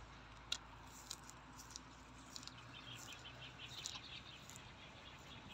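Quiet outdoor ambience with a faint run of rapid high chirps in the middle and a few soft clicks.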